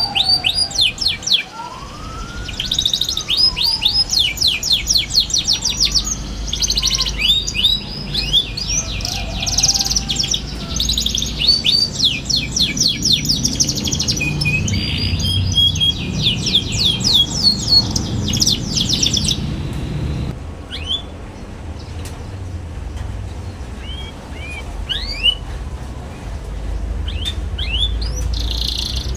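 Young canary singing fast, high chattering trills (ngeriwik), dense and continuous for about twenty seconds, then thinning to scattered single chirps. A few slow, lower rising-and-falling whistles sound near the start.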